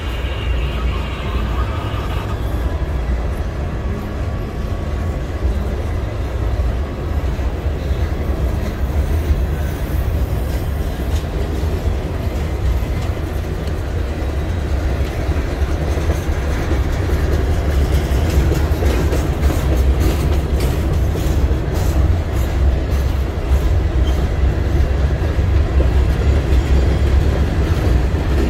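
Empty open-top stone hopper cars of a CSX freight train rolling past, a steady rumble of wheels on rail. Sharp wheel clicks over the rail joints grow louder through the second half.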